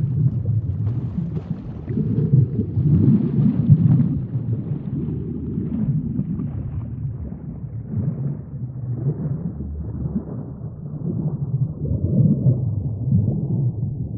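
Underwater ambience in shallow reef water: a low, surging rumble that swells and fades every second or two, with faint scattered crackling clicks, most of them in the first few seconds.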